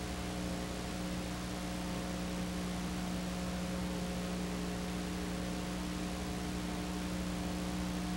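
Steady hiss with a low electrical hum underneath, unchanging throughout, and no other sound.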